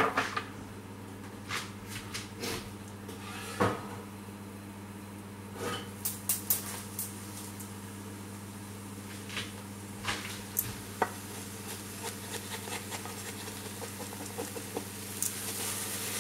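Kitchen clatter of a frying pan being handled: scattered clicks and knocks over a steady low hum. Near the end comes a scraping hiss as the omelette slides out of the pan onto a plate.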